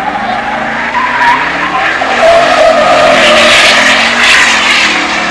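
A car's spinning tyres squealing loudly over its running engine, swelling to their loudest about two seconds in and easing off near the end.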